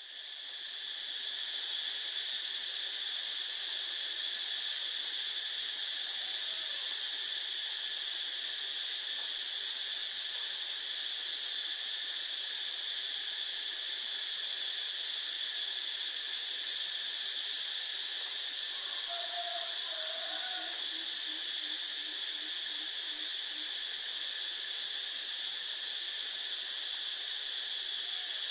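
Steady, unbroken high-pitched drone of an insect chorus, with a hiss above it.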